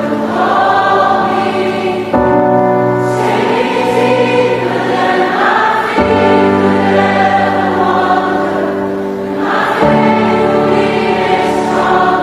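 Background music: a choir singing long sustained chords that change every few seconds.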